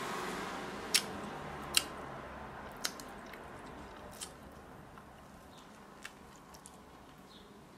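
A person chewing a mouthful of burger and bun up close, with sharp mouth clicks every second or so that grow fainter, and another bite taken near the end.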